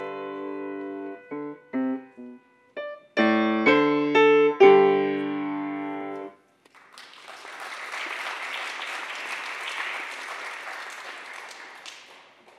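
Brodmann grand piano playing the closing chords of a piece, the last one held for about a second and a half before it stops. About half a second later the audience starts applauding, and the clapping fades out near the end.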